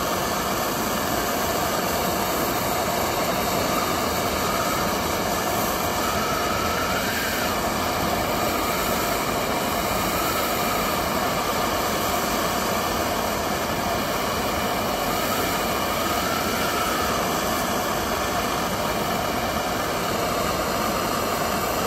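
MAP gas hand torch burning with a steady hiss, its flame heating a clogged chainsaw spark arrestor screen red hot to burn off the carbon deposits.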